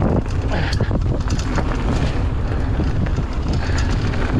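Wind buffeting the microphone over the rumble of mountain-bike tyres rolling on a rough dirt trail, with frequent short clicks and rattles from the bike as it rides over the bumps.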